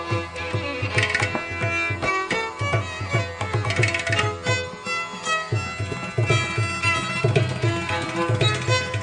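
Background music: Indian classical instrumental, with a string melody over a steady rhythm of hand-drum strokes.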